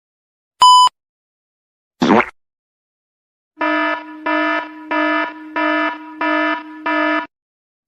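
An alarm buzzer sound effect sounding six evenly spaced buzzy pulses, about one and a half a second. It is preceded by a short high beep and a brief noisy burst.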